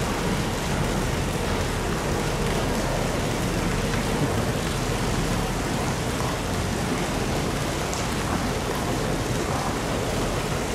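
A steady, even hiss of water.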